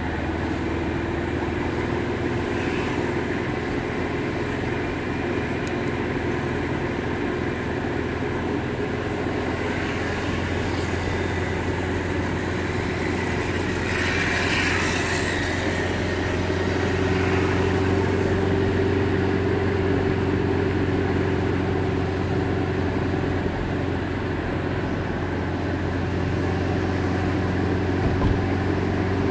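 Car driving, heard from inside the cabin: a steady engine and road drone with a low hum. About halfway through a brief hiss swells and fades.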